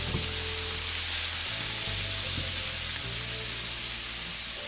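Onions, bell peppers and garlic sizzling steadily as they saute in a hot pan. Background music with low held notes plays underneath.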